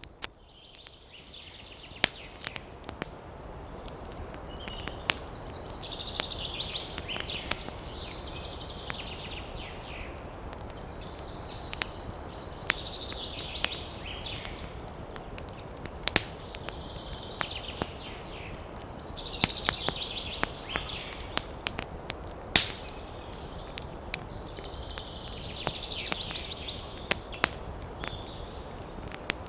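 Campfire crackling, with irregular sharp pops over a steady hiss. A high chirping comes and goes in spells of a couple of seconds, about five times.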